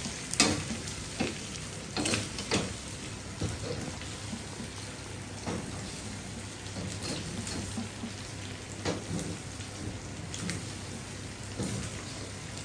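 Pork adobo sizzling in a steel wok, a steady crackling hiss, with the metal turner clinking and scraping against the pan a handful of times as the meat is stirred.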